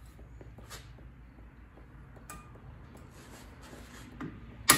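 A hammer strikes a hand impact screwdriver once near the end, a sharp metallic crack with a short ring, to break loose a tight screw at the rear brake hub without stripping it. Before it there are a few light clicks of tools being handled.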